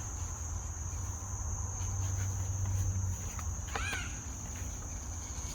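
Steady high-pitched insect trill with a low rumble underneath, and a brief rising-and-falling chirp about four seconds in.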